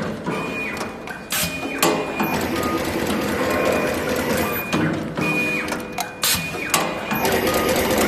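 Fully automatic multicore cable stripping and crimping machine running through its cycle: short motor whines starting and stopping, with pairs of sharp clacks, one pair about a second and a half in and another about six seconds in.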